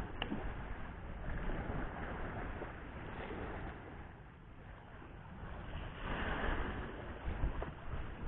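Wind buffeting the microphone over sea waves washing against a concrete sea wall, the wash swelling louder about six seconds in.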